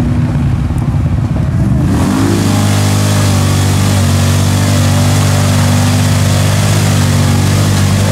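ATV engine revving hard under load in deep mud, its pitch rising and falling. About two seconds in the sound changes abruptly to a steady high-revving engine with a loud hiss over it.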